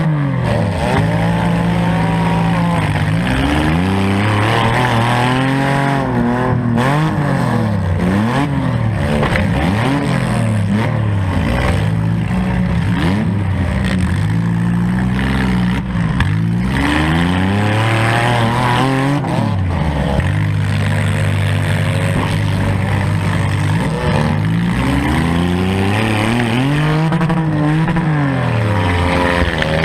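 Modified four-cylinder demolition derby car engine revving up and down over and over, its pitch climbing and falling every couple of seconds as the throttle is opened and released.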